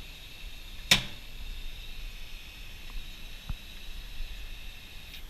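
Small computer cooling fan running with a faint steady high-pitched whine, the odd noise being traced to it. A sharp click about a second in, and a smaller one later.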